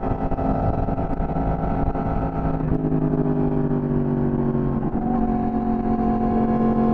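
Yamaha sport bike engine running at highway speed in fourth gear, with wind rushing over the helmet camera. The engine note falls over a couple of seconds as the bike slows, then holds steady from about five seconds in.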